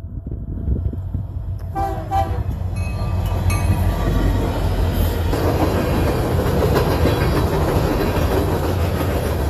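A freight train passes close by, its rumble and rail noise building about three seconds in and staying loud. Just before that, a locomotive horn gives two short blasts.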